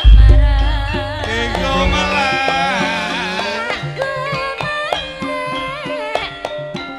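Javanese gamelan music with a woman singing into a microphone in a wavering voice over drum strokes and struck metal keys. A deep low boom at the start is the loudest sound and rings on for about two seconds.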